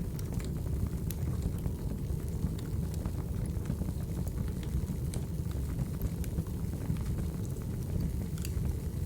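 Crackling wood fire from a firewood-burning ASMR recording: a steady low rumble of flames with scattered sharp pops and crackles.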